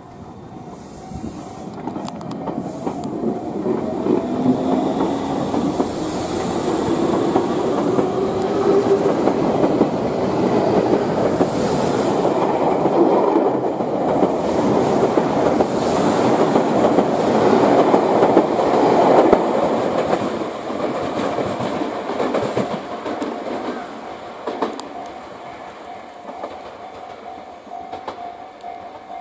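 Tobu 30000 series electric train pulling away: the traction motors give a whine that rises in pitch during the first several seconds, over the rumble and clatter of the wheels on the rails. It grows louder for most of the time, then fades as the train draws away.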